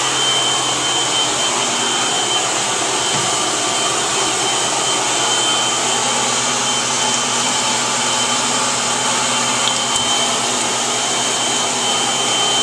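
Steady loud rushing of an electric blower motor, with a thin high whine held on top and a low hum underneath, unchanging throughout.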